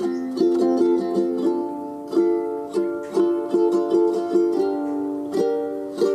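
Background music: a light melody of plucked string notes, about three notes a second.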